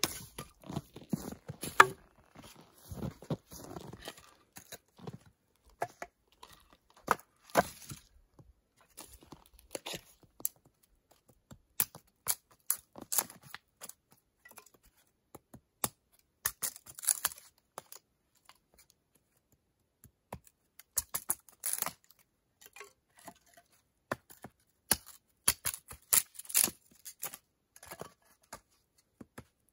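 Hatchet splitting firewood into kindling on a chopping block: irregular sharp chops and cracks, with the wood's fibres tearing as sticks are pried apart and split pieces knocking together, in scattered bursts with short pauses between.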